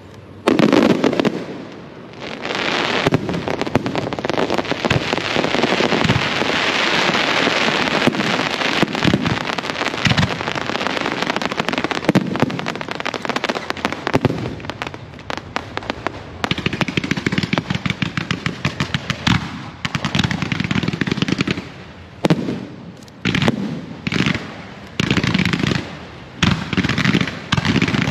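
Fireworks display: dense crackling and popping of bursting shells and ground-fired effects, loud and continuous through the first half, then in shorter volleys with brief gaps between them.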